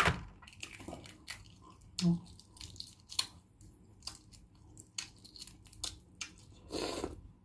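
Close-miked eating of balut (boiled fertilized duck egg): scattered wet clicks and chewing sounds, with a sharp click right at the start and a short breathy noise near the end.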